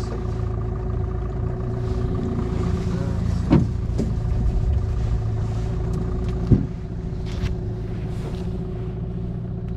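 A boat's outboard motor running steadily under way, with two sharp knocks on the boat about three seconds apart.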